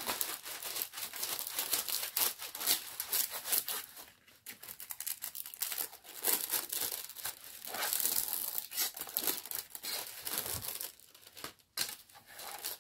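Crinkling and rustling of a diamond painting canvas's protective paper sheet, handled and pressed back down onto the sticky canvas by hand to smooth out its creases. The crackle goes irregularly, with brief pauses about four seconds in and near the end.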